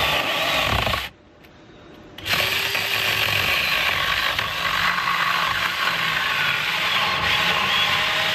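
Portable electric mini chainsaw running and cutting into a wooden fence post, a steady motor whine over the chain in the wood. It stops about a second in and starts again about two seconds in.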